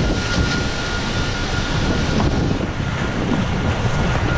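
Wind rumbling across the microphone over choppy sea water washing along a small open boat, with a thin steady high tone running through.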